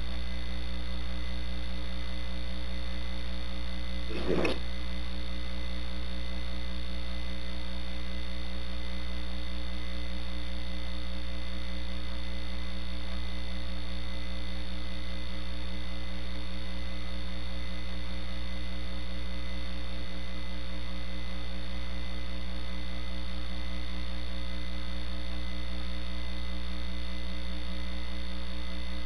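Steady electrical hum with hiss from an open microphone and sound system, unchanging throughout. A brief faint sound cuts in once about four seconds in.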